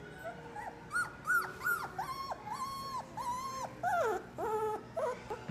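Bernese mountain dog puppy whining in a run of about a dozen high, thin cries: short rising-and-falling ones first, then longer held ones, one sliding down partway through.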